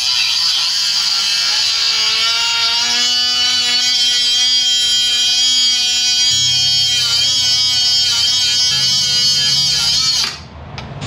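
Cutoff wheel spinning and cutting the mushroomed tip off a seized steel ball joint stud: a loud, steady high whine with hiss that settles in pitch after a couple of seconds, wavers and dips as the wheel bites in the second half, and stops near the end.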